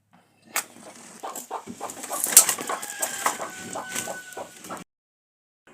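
Birds calling, mixed with sharp clicks and knocks; it starts about half a second in and cuts off abruptly near the end.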